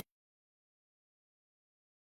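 Digital silence: the audio cuts out completely, with no sound at all.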